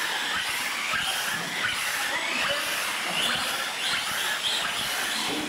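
Several radio-controlled trophy trucks racing, their motors whining high and rising and falling in pitch as the throttle is worked.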